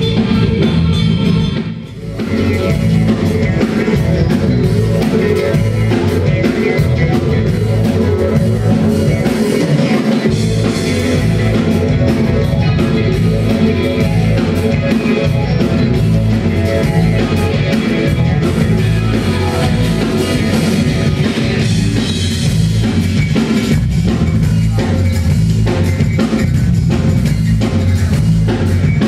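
Rock band playing live: drum kit, bass guitar and electric guitar, with a brief drop in level about two seconds in.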